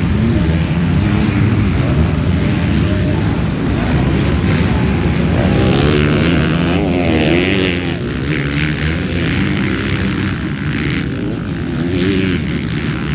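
Several MX2 motocross bikes racing on the track, their engines revving up and down together in a continuous mix, the pitch rising and falling as the riders throttle on and off.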